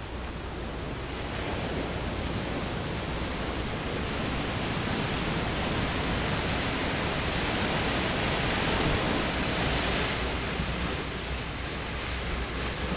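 Seawater surging and churning into a rocky sea cave: a steady rush of surf that builds to a peak about nine seconds in, then eases.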